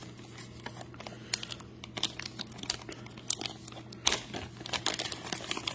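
Clear plastic packaging bag crinkling and rustling in the hands as a portable cassette player is worked out of it, with irregular sharp crackles throughout.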